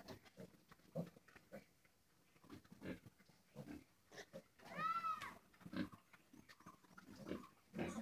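Pigs grunting in short, low bursts, with one short, high squeal that rises and falls in pitch about five seconds in.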